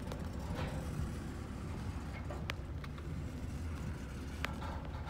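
Steady low rumble of a slow-moving double-stack intermodal freight train rolling past, muffled through a closed car window, with two sharp clicks.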